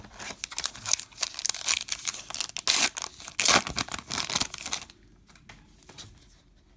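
Crinkly foil wrapper of a baseball card pack being handled and torn open, a run of sharp crackling rustles that stops about five seconds in.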